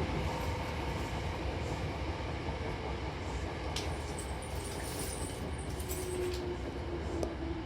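Hankyu Imazu Line electric train running between stations, with a steady rumble of wheels on rail. A faint high-pitched squeal from the wheels or track comes in from about four seconds in.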